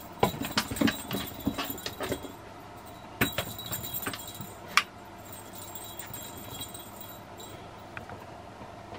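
A cat playing with toys on a wooden floor: two bursts of clicking and rattling as it bats at them and at a plastic circle track toy with a ball inside, the second burst ending in a sharp knock about five seconds in.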